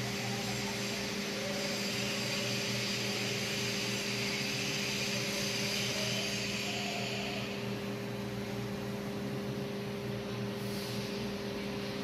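CNC lathe turning a steel workpiece under coolant: a steady machine hum with a hiss over it. The hiss fades about seven or eight seconds in, leaving the hum.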